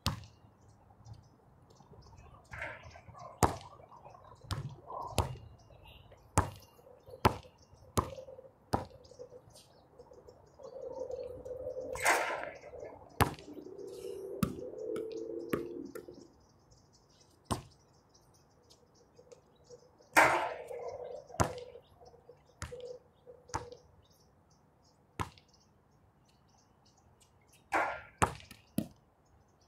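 A basketball bouncing on a hard outdoor court: sharp thuds at irregular intervals, sometimes two or three in quick succession. A few louder knocks ring briefly.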